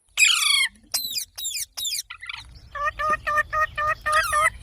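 Green parrot screeching, with harsh calls that fall in pitch. A quick run of short repeated notes follows at about five a second, then another falling screech near the end.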